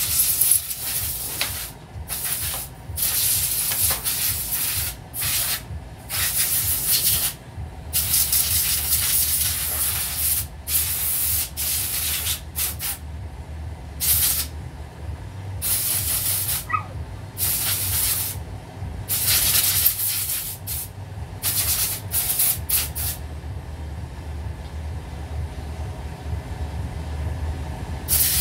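Repeated short bursts of hissing spray, each lasting a fraction of a second to about a second and a half, with irregular gaps, over a steady low hum.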